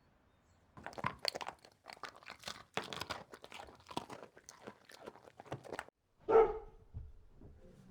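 A dense run of crunching clicks for about five seconds, then a dog barks once, loudly, about six seconds in.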